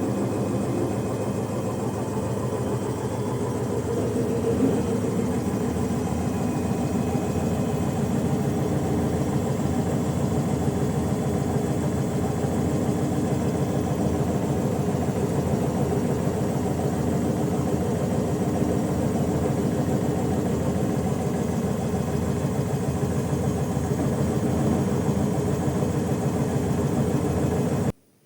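Midea top-loading washing machine running, its lid knocking with a steady, rapid rattle over the drum's hum. The sound cuts off suddenly near the end.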